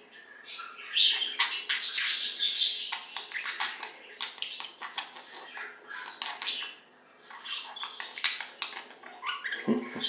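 Budgerigars chattering and warbling: a fast run of short chirps, clicks and squeaks, with a short lull about seven seconds in.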